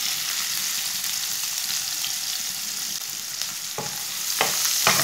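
Chopped onion sizzling steadily in hot oil with cumin seeds in a frying pan. From just before four seconds in, a slotted spatula stirs it, with a few short knocks against the pan.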